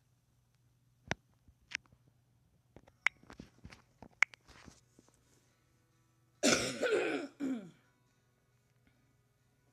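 A woman coughing, about three harsh coughs in a row starting about two-thirds of the way in. Before it, a few faint clicks and taps.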